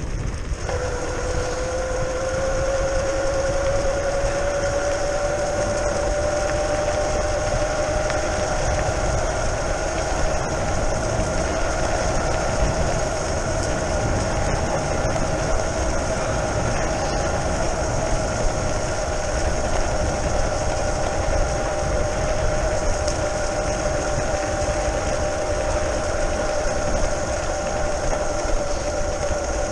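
Whine of a modified Razor E300 electric scooter's brushless outrunner hub motor under its VESC controller. The whine comes in about a second in and rises in pitch over the next few seconds as the scooter speeds up, then holds nearly steady at cruising speed. Under it is a constant low rumble of tyres on the rough track and wind.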